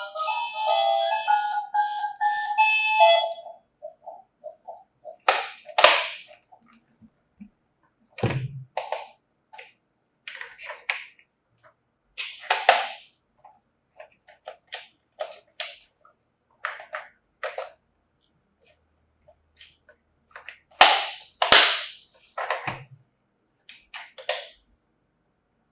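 A toy's electronic siren-like tones end about three seconds in. They are followed by scattered sharp clicks and clacks of small plastic toy emergency vehicles, the loudest about six, twelve and twenty-one seconds in.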